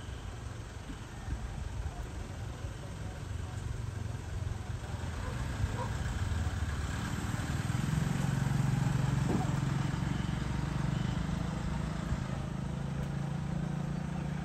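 A motor vehicle's engine running nearby, a steady low hum that grows louder about halfway through and then holds.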